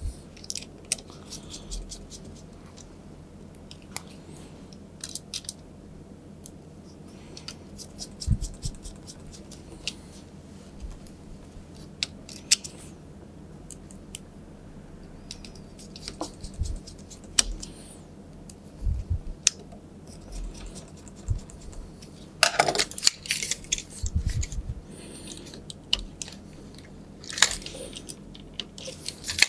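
Scattered small clicks and ticks of a precision screwdriver driving screws into a wireless mouse's circuit board. Twice in the later part there are louder bursts of plastic rattling and clattering as the mouse's shell and parts are handled and fitted.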